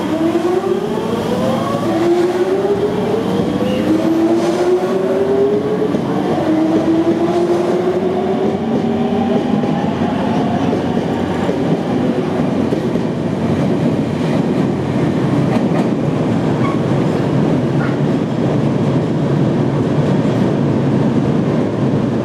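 Nankai 2000-series electric train pulling away, its inverter-driven traction motors giving a loud whine that rises in pitch, drops back and rises again several times over the first ten seconds as it accelerates. After that the sound becomes a steady running rumble of motors and wheels with rail clatter.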